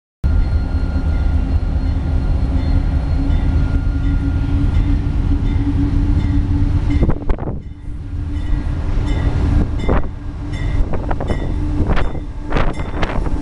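CSX freight train running past close by: a loud, steady low rumble with a held hum, and from about halfway a run of sharp clanks from the wheels on the track.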